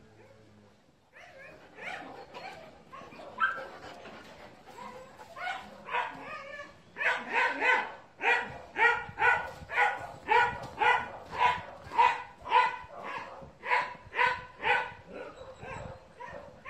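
Dogs whining and yelping, then from about seven seconds in a dog barking in a steady run, about two barks a second.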